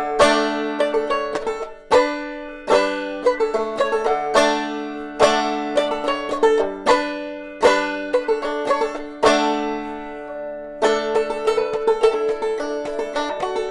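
Five-string banjo played solo clawhammer style, with downstruck notes and brushes ringing out over steady drone tones. Through the middle the notes come sparser and slower and ring longer, and the picking turns busier again near the end.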